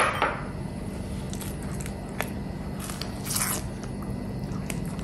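A silicone spatula stirring grated cheddar into thick white sauce in a ceramic-coated pan: soft wet squishing with a few short, light scrapes against the pan as the cheese is worked in to melt.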